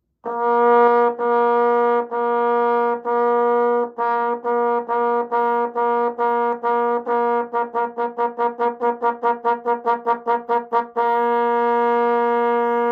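Yamaha tenor trombone playing one repeated note in a tonguing exercise: each note is started by the tongue on a continuous airstream. The notes come about one a second, then about two a second, then about four a second, and end on one long held note.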